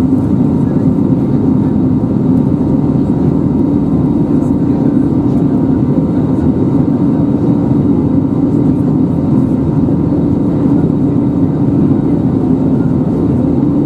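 Steady cabin noise of an Airbus A320neo in flight: the CFM LEAP-1A engines and airflow heard from a passenger seat, an even drone with a strong low hum and no change in pitch or level.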